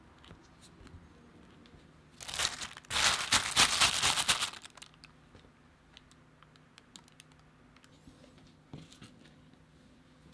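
Thin plastic film crinkling as it is pulled and pressed over a dish, for about two and a half seconds starting about two seconds in. Faint small handling clicks before and after.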